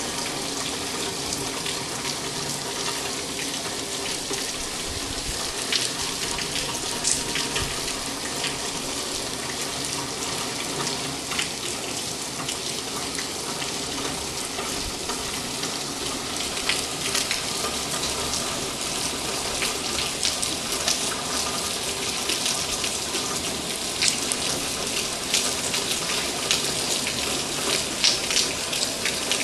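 Steady rain falling, with scattered individual drops ticking sharply close by.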